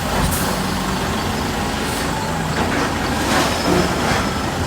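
Heavy demolition machinery running steadily, its diesel engine humming under a noisy haze, with a few short sharp crunches or scrapes: about a second in, around two seconds in and around three and a half seconds in.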